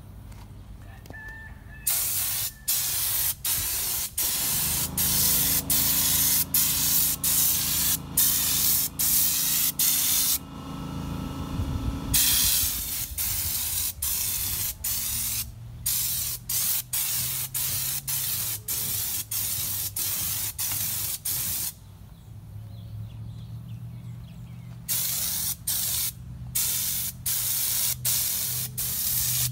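Air-powered schutz spray gun screwed onto a Raptor bedliner bottle, spraying a second coat of textured bedliner in short trigger-pulled bursts of loud hissing, about one a second, with two longer pauses. A low steady hum runs underneath.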